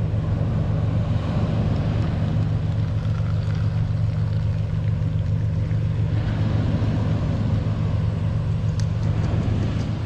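Steady, unchanging low drone of an engine running at idle. About six seconds in, tea pours from a kettle through a strainer into a cup over the hum.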